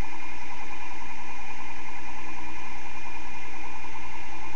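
Bedini monopole pulse motor running steadily at close to its top speed. Its rotor of twelve neodymium magnets spins past the pulsing coil, giving an even hum of several steady tones.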